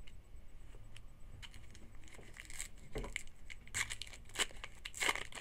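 A trading-card pack's wrapper being torn open and crinkled: a run of irregular rustling tears, with a low thump about three seconds in.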